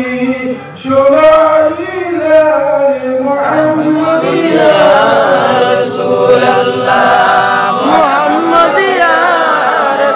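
Unaccompanied devotional chanting of a naat at a milad: one lead male voice sings into a microphone, and a group of men's voices joins in chorus about three and a half seconds in.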